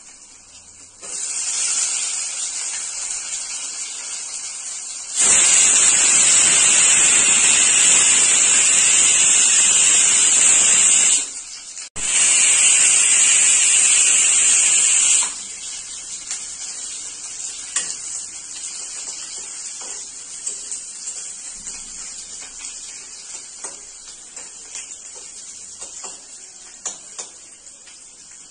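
Sliced onions sizzling in hot oil in a kadai. The sizzle starts about a second in and turns loud and steady from about five to fifteen seconds in while the onions are stirred with a spatula. It then settles to a quieter sizzle with scattered pops and crackles.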